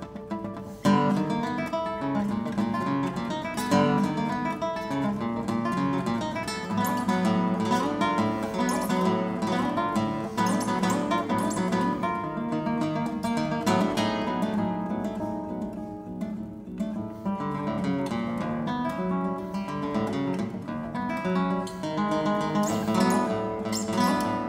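Solo classical nylon-string guitar: a soft opening, then about a second in a sudden loud attack and a busy passage of rapid plucked notes that runs on.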